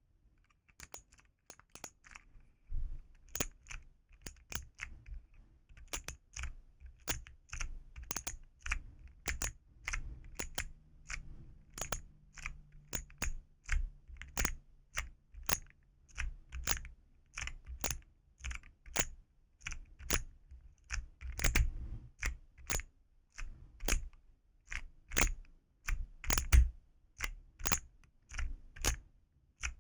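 Keycaps of a mechanical-keyboard fidget toy pressed over and over: a steady run of sharp, clacky key clicks, about two to three a second, starting about a second in.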